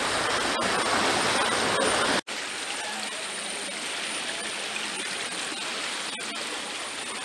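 Shallow, rocky river rushing steadily over stones. An abrupt cut about two seconds in leaves it somewhat quieter.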